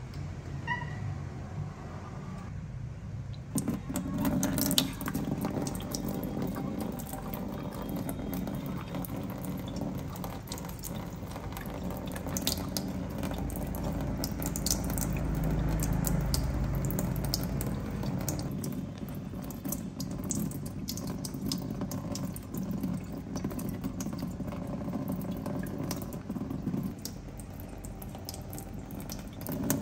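Kitchen faucet running into a stainless steel sink, starting a few seconds in, with irregular splashing as a young monkey's hands grip the faucet and play in the stream.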